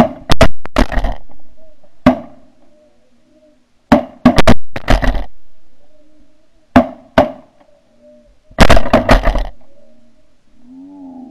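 Rapid shotgun fire from several hunters: a dozen or more shots in repeated bursts, loud and sharp. Behind them, snow geese are calling faintly and steadily, a little clearer near the end.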